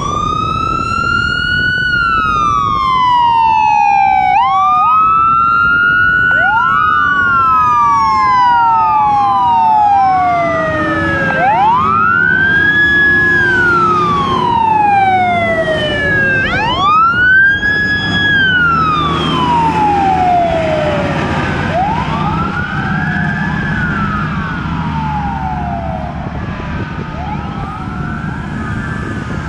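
Sirens of fire apparatus, a fire engine and a ladder truck among them, wailing as they pull out on a call: several wails rising and falling, overlapping out of step with one another. They grow a little fainter near the end as the trucks drive off.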